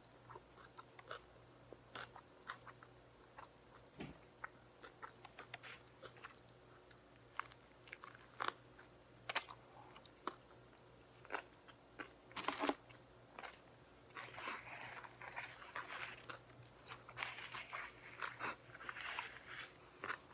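Close-miked chewing and biting into a Subway sub sandwich: scattered wet mouth clicks and crunches, growing busier near the end.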